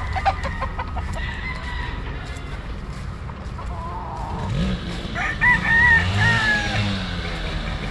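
Gamefowl roosters crowing. A faint call comes about four seconds in, then one loud, long crow about five seconds in that falls away at its end.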